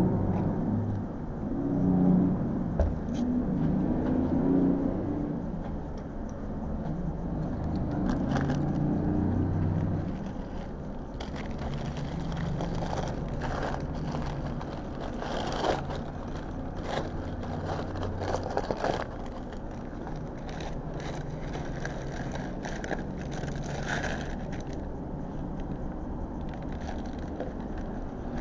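Road traffic passing outside the restaurant window, a low rumble that is strongest over the first ten seconds as a box truck goes by, then a steadier hum. Scattered clicks, scrapes and crackles come from a foam drink cup and a paper sandwich wrapper being handled on the table.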